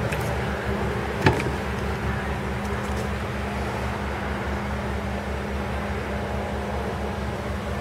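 A steady low mechanical hum with a throbbing low end, and one sharp click about a second in.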